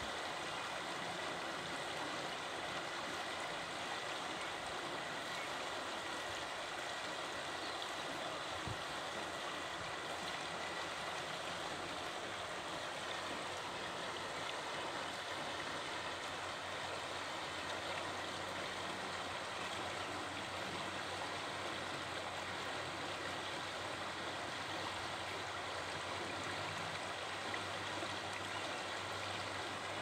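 Shallow river water flowing steadily over a stony bed.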